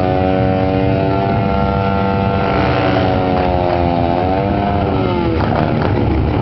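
Motorcycle engine held at high, steady revs during a rear-tyre burnout. About four seconds in, the revs dip and wobble, then the note breaks up into a rougher, crackling sound.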